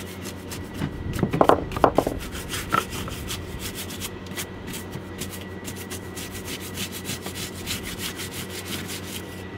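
Cloth rubbing and scrubbing at the marine growth crusted on a salvaged Penn fishing reel, in quick repeated scratchy strokes, louder for a moment about a second and a half in.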